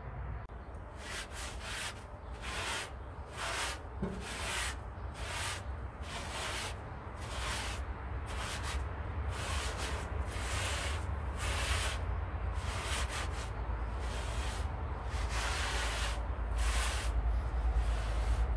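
Repeated rubbing or scrubbing strokes, roughly one to two a second, starting about a second in. A low rumble underneath grows louder toward the end.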